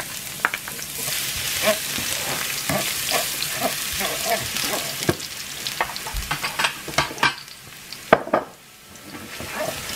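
Minced garlic sizzling in hot oil and melted sugar in a frying pan, stirred with a wooden spatula that scrapes and clicks against the pan. The stirring stops and the sizzle quietens about eight seconds in.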